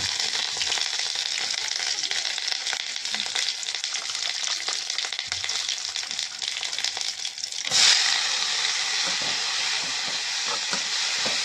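Food sizzling and crackling in hot oil, with a sudden louder surge of sizzling nearly eight seconds in.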